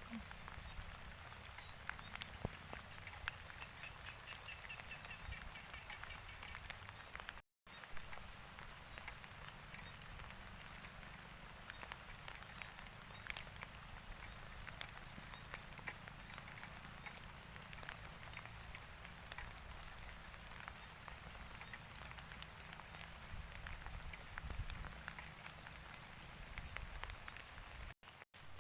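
Steady rain falling, a dense patter of drops over an even hiss. The sound cuts out for a moment about seven seconds in.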